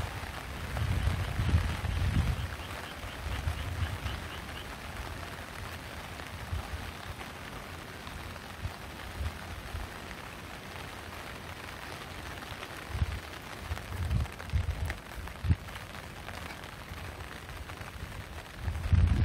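Rain falling steadily, with low rumbles on the microphone near the start and again about two thirds of the way through.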